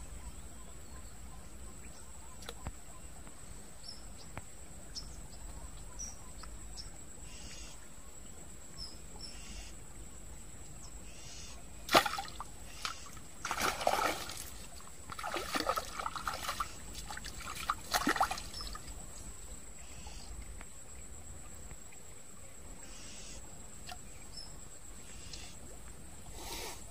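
Splashing in shallow stream water: one sharp splash about twelve seconds in, then several seconds of irregular sloshing and splatter that die away.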